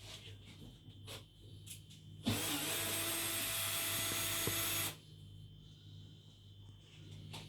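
Power drill-driver running in one steady burst of about two and a half seconds, starting about two seconds in and cutting off suddenly; a few small clicks and knocks before and after.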